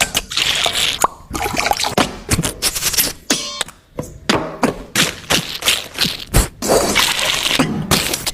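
Beatboxed mouth sound effects imitating cooking: hissing, pouring-like noises broken up by many sharp clicks and knocks.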